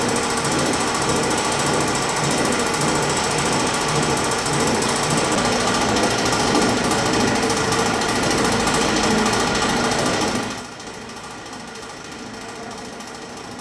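Old metal pedestal fans running with a loud, fast mechanical rattle. It drops suddenly to a quieter steady noise about ten and a half seconds in.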